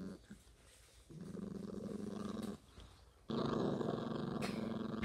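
A puppy growling in long, low, steady growls, twice, while it chews on a bone and a hand reaches toward it: guarding its chew.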